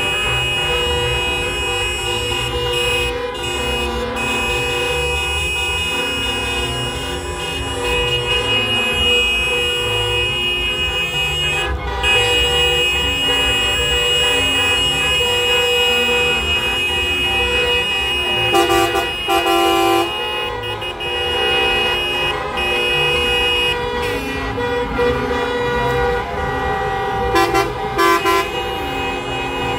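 Many horns honking at once, several steady held tones overlapping and cutting in and out, with a few louder blasts about two-thirds of the way through and again near the end.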